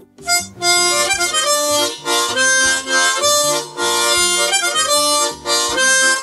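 Harmonica playing a run of chords and single notes in short phrases with brief gaps, starting a moment in.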